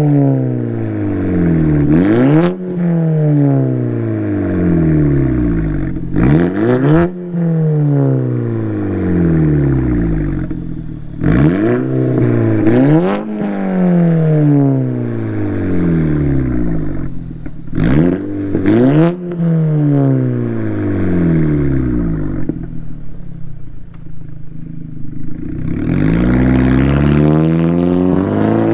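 Audi A4 2.0T TFSI turbocharged four-cylinder through a JHM 3-inch performance exhaust, revved from idle in a series of quick throttle blips, some single and some in pairs. Each blip rises fast and falls back more slowly. After a lull near idle, the revs climb steadily near the end as the car pulls away.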